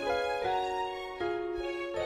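Background music: a melody of held notes that change every half second or so.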